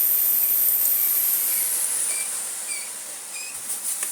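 Miele S5281 2200 W vacuum cleaner running with a high whine, then winding down from about two seconds in, the whine falling in pitch and fading as the motor slows.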